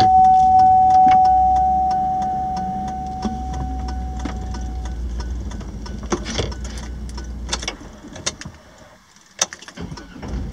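Inside a truck's cabin with the engine running, a dashboard warning chime sounds one steady mid-pitched tone, struck several times in quick succession and then fading over about five seconds, in a truck whose engine keeps losing power and lighting its traction-control and reduced-power warnings. Light ticking goes on at about three a second, and near the end the engine's low rumble drops away for a moment.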